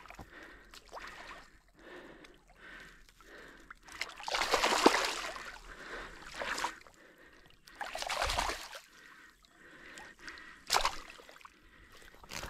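Water splashing and sloshing in several separate bursts as a small carp, shot with a slingshot fishing arrow, thrashes while it is hauled in at the water's edge. The longest and loudest splash comes about four seconds in, with a short sharp one near the end.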